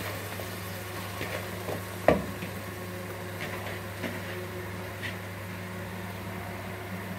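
Chicken and tomato stew sizzling in a pot, faint crackles over a steady electrical hum. A single sharp knock about two seconds in.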